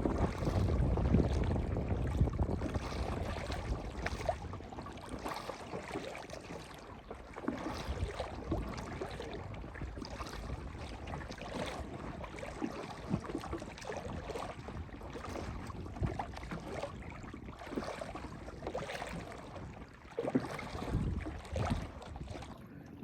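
Dinghy being rowed after its outboard has died: recurring oar strokes in the water under wind buffeting the microphone, the wind loudest in the first few seconds.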